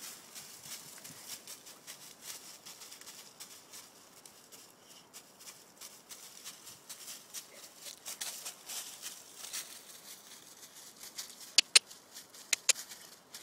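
Footsteps rustling and crunching through a thick layer of dry fallen leaves. Near the end come four sharp clicks close together, louder than the rustling.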